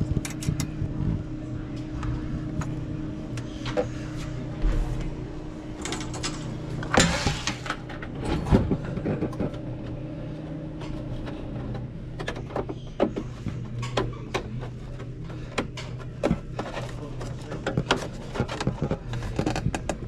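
A steady low mechanical hum with many scattered knocks and clicks. A higher steady tone in the hum stops about halfway through, and a louder rattling burst comes about 7 seconds in.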